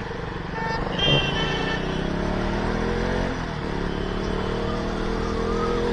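Motorcycle engine accelerating, its pitch rising through a gear, dipping at an upshift about three seconds in, then rising again, with wind rumbling on the microphone.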